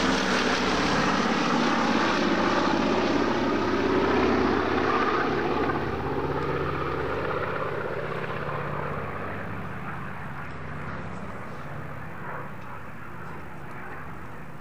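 Boeing B-17G Flying Fortress bomber's four Wright R-1820 Cyclone radial engines droning on a flypast, loud for the first half and fading steadily as the aircraft draws away.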